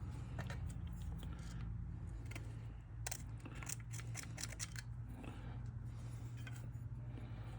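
Small sharp metal clicks and snips from hand work on an old fuel-tank sending unit being taken apart, coming in a quick cluster about halfway through, over a steady low hum.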